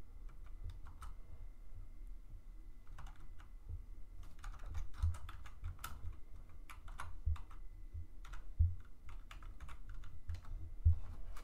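Typing on a computer keyboard: quick, irregular key clicks in short runs with brief pauses between them.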